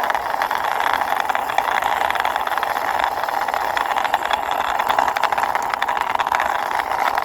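Toy army tank pushed along by hand, its plastic wheels rolling with a steady, fine rattle.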